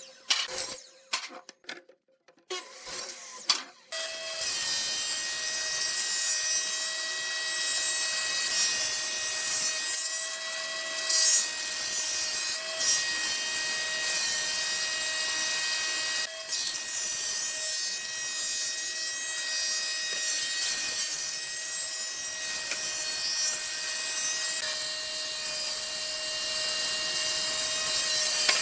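A few knocks of wood being handled, then an electric woodworking power tool starts about four seconds in and runs steadily on wood, a constant motor whine over a dense hiss of cutting.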